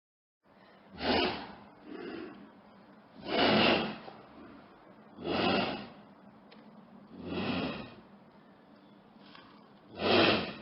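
Creature sound effect of heavy, breathy snorts, six in all with one fainter than the rest, coming roughly every two seconds after a short silence at the start.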